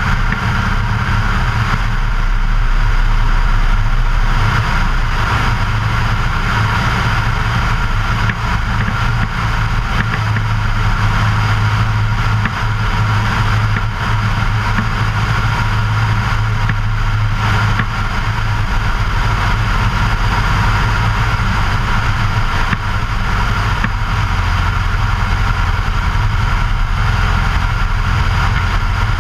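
Luscombe light airplane's piston engine and propeller running steadily in level flight, with rushing wind noise on the exterior-mounted microphone.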